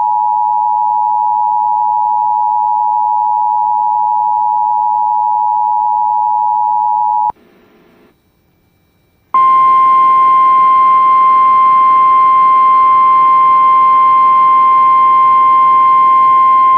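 Emergency Alert System attention signal: two steady tones sounding together, held about seven seconds and cutting off suddenly. After a pause of about two seconds, the single steady tone of the NOAA Weather Radio warning alarm starts and holds to the end, announcing a warning broadcast.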